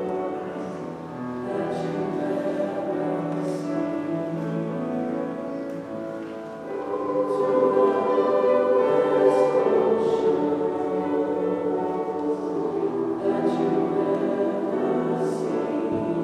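Mixed-voice school choir singing a sustained choral piece in parts, growing louder about seven seconds in.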